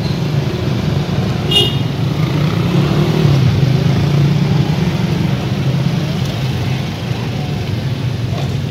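Road traffic: a steady low rumble of passing vehicle engines, with a brief high-pitched tone about one and a half seconds in.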